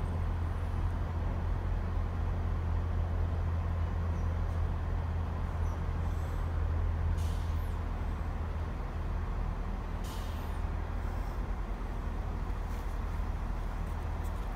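Diesel multiple unit's engine running with a steady low hum, easing a little in the second half. Two short hisses of air come about halfway through, a few seconds apart.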